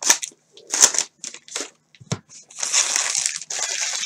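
Crinkling of a plastic trading-card pack wrapper being handled: a few short rustles, then a longer continuous crinkle starting about two and a half seconds in.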